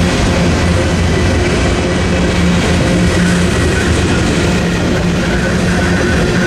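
Freight train's covered hopper cars rolling past over a level crossing, steel wheels running on the rails, loud and steady.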